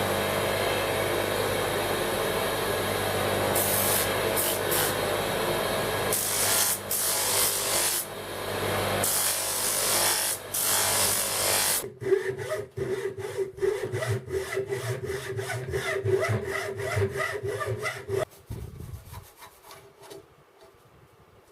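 A motor-driven tool runs steadily for about twelve seconds, then gives way to rapid back-and-forth hand strokes rubbing at wood, about four a second, which stop shortly before the end.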